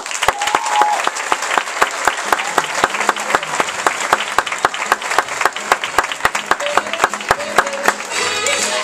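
Theatre audience applauding, with a brief cheer near the start.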